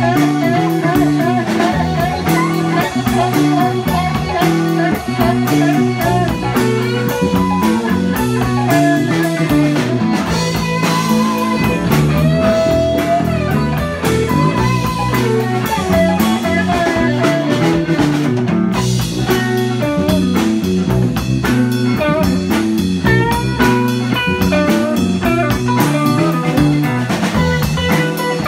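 Live band playing blues rock: an electric guitar lead with bending notes over bass guitar and a drum kit keeping a steady beat.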